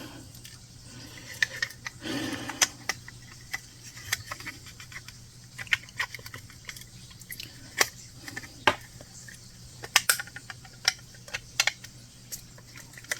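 Small irregular clicks and taps of a plastic HO scale locomotive body shell being handled and worked down onto its chassis, over a faint low steady hum.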